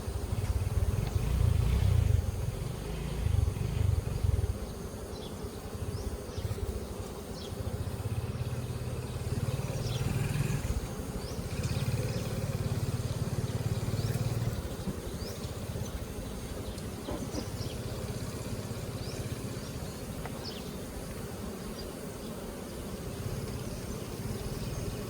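Bees buzzing around a beehive, under a low rumble that comes and goes in stretches of a few seconds.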